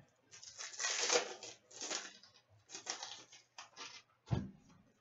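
Crinkling and rustling of a foil hockey card pack wrapper being torn open and handled, in several short bursts, followed by a single knock about four seconds in.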